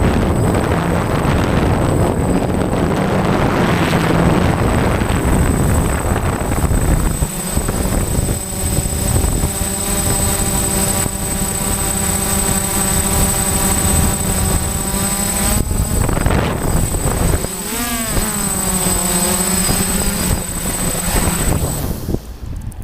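DJI F550 hexacopter's motors and propellers whirring in flight, with wind noise on the microphone and a steady high whine. The motor pitch swoops up and down a few times about eighteen seconds in, and the sound drops away near the end.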